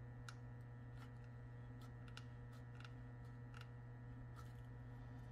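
Near silence: a steady low electrical hum, with several faint light clicks spaced irregularly through it.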